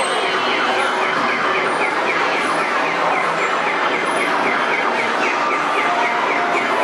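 A rapid warbling siren-like electronic tone, pulsing about three times a second, over a steady loud din.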